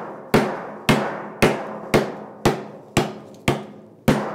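Wooden meat mallet striking a lemongrass stalk on a wooden cutting board, bruising it: eight sharp knocks, about two a second.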